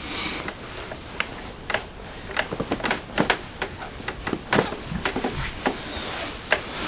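Short, sharp clicks and knocks in an irregular run during a side-lying low back chiropractic adjustment on a treatment table, thickest in the second half, after a brief hiss at the start.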